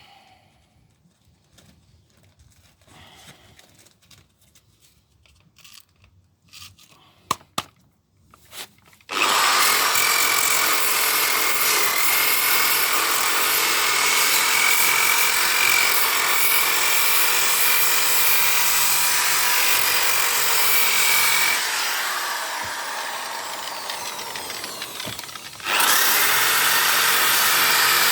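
A few light knocks and handling noises, then a power sander starts up about nine seconds in and runs loudly and steadily with a high whine, sanding body filler on a van sill. Around two-thirds of the way through it eases off and its pitch falls for a few seconds, then it picks back up to full speed near the end.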